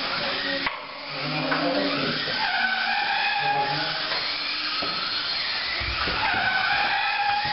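Several Kyosho Mini-Z radio-controlled cars racing, their small electric motors whining in pitches that rise and fall as they accelerate and slow through the corners.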